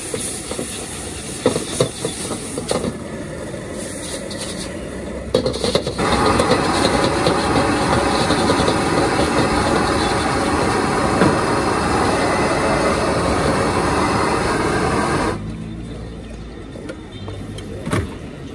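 Street-stall wok cooking: a few metal clanks at the wok, then a loud, steady hiss that starts suddenly about six seconds in and cuts off suddenly about nine seconds later.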